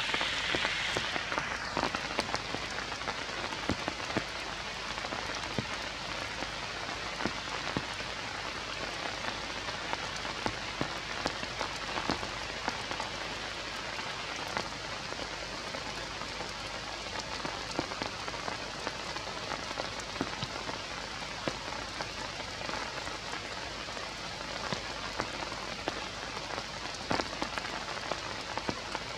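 Steady rain falling on forest leaves and branches, a continuous hiss with many single drops striking sharply close by. A brighter high hiss at the very start fades out within about two seconds.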